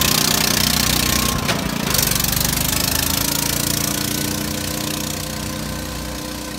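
Engine of an old Kawasaki flatbed utility vehicle running, with a brief break in the note about a second and a half in. It then pulls away with the note rising slightly and fades as it drives off.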